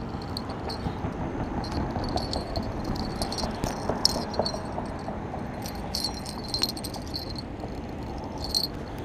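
Insect chorus: a steady high-pitched chirring that swells into louder bursts about four, six and eight and a half seconds in, over a low background rumble.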